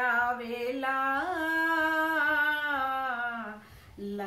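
A woman singing unaccompanied in Punjabi: one long, drawn-out phrase whose note steps up about a second in, is held and slowly falls, then breaks off briefly near the end before the next line begins.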